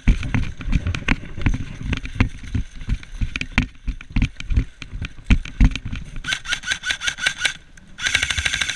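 Hurried footsteps through brush with gear knocking and rattling, then two quick bursts of airsoft gunfire, rapid evenly spaced shots, in the last few seconds.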